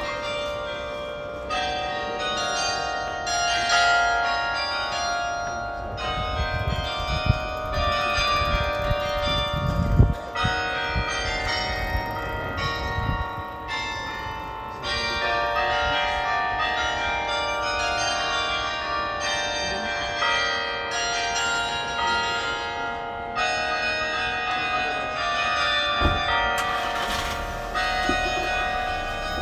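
Church carillon bells playing a melody, notes struck one after another over the ringing of earlier ones. A few low thumps come through about a third of the way in and again near the end.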